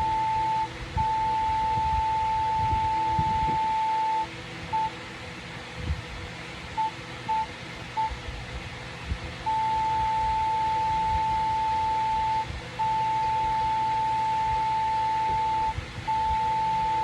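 Morse code sent as a single steady beep keyed on and off: long dashes of about three seconds each, then four short dots spaced apart, then three more long dashes. A low background rumble is heard in the gaps.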